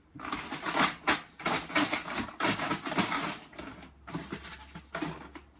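Container of numbered raffle draw tokens being shaken, rattling in repeated strokes about two a second, then stopping shortly before the end to mix the entries for the next draw.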